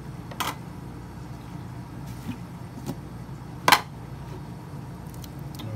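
Steady low background hum of a kitchen with a few sharp clicks from kitchen utensils being handled, the loudest about three and a half seconds in.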